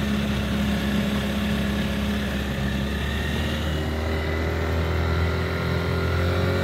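Outboard motor running steadily, driving a small boat under way. Its note shifts about halfway through and then climbs slowly toward the end.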